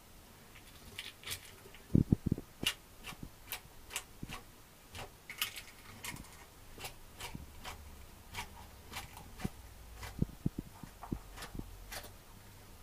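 Savannah monitor lizard crunching a quail egg in its jaws, the shell cracking in a run of sharp, irregular clicks and crackles, with a few dull knocks, the loudest about two seconds in.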